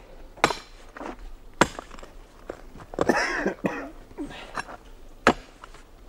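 Iron mattock blade striking and prying at packed earth and stone around a large stone slab to work it loose: three sharp knocks, about half a second in, at a second and a half and near the end, with lighter clicks and scrapes between and a brief rasping sound about three seconds in.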